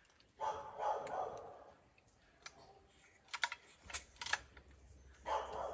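A few sharp clicks and rattles from a McCulloch SP81 chainsaw being handled before it is started, bunched together about three to four seconds in.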